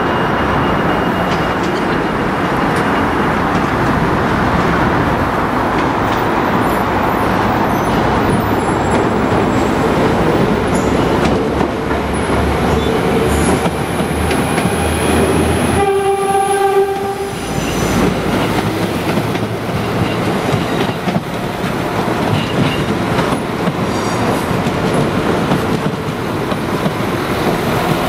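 Northern Ireland Railways diesel multiple units passing close, engines and wheels running steadily over the track. A short horn blast sounds once, about sixteen seconds in.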